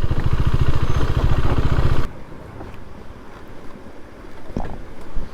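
Motorcycle engine running with an even, fast pulse, then cutting off abruptly about two seconds in, leaving only a faint, quiet rustle.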